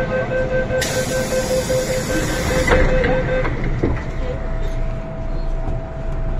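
Door-closing warning beeps on an MTR Kwun Tong Line M-Train, a rapid beeping tone, under a hiss, ending with a knock as the doors shut almost three seconds in. About a second later a steady hum starts up from the train.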